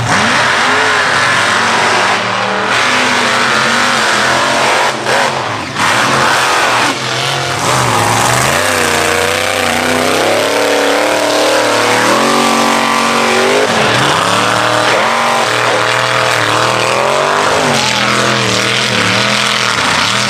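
Mega truck engines revving hard as the trucks race over a dirt course, the pitch surging up and down again and again with the throttle. There are a few brief breaks in the sound between about two and seven seconds in.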